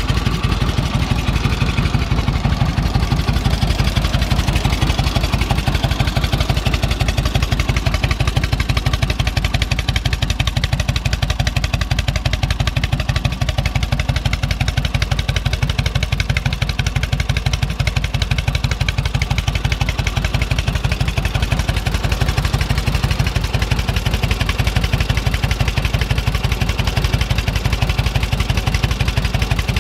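1946 Indian Chief's flathead V-twin engine idling steadily with an even, rapid beat. The fuel petcock is shut off and the engine is idling on what fuel is left, to empty the carburetor and fuel lines before shutdown.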